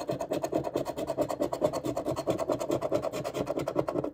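A coin-like token scraping the latex coating off a scratch-off lottery ticket in rapid back-and-forth strokes, about ten a second, stopping abruptly near the end.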